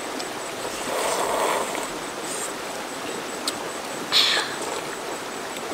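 A river flowing over rocks, a steady rushing hiss, with a brief louder breathy burst about four seconds in.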